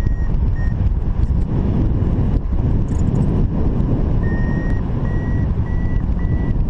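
Wind rushing over the microphone during a paraglider flight, with a flight variometer's short beeps. After a couple of early beeps the tones return about four seconds in as a steady run, creeping slightly up in pitch, which signals the glider is climbing in lift.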